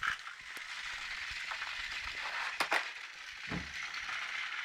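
Battery-powered Thomas & Friends toy trains running on plastic track: a steady mechanical rattle of small motors and wheels, with a couple of clicks and a low knock a little past the middle.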